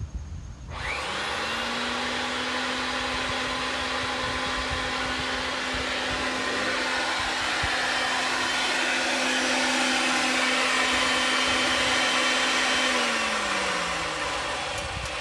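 Electric pipe threading machine running while threading gas pipe: the motor spins up about a second in, runs with a steady whine, then winds down with falling pitch near the end.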